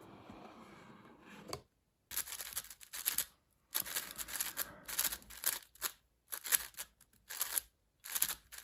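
Plastic speedcube being turned in quick bursts, its layers clattering and scraping dryly, starting about two seconds in with short pauses between bursts.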